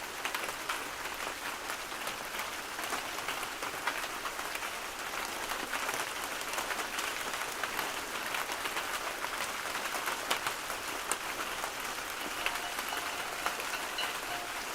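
Steady rain patter, a dense even hiss of many small drop ticks. Faint steady tones come in near the end.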